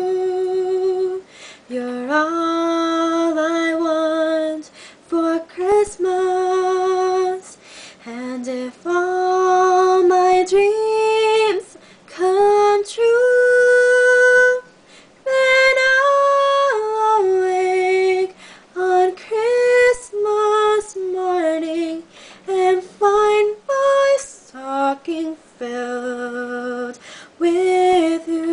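Unaccompanied female voice singing a slow Christmas ballad, in long held notes with vibrato and short breaks between phrases.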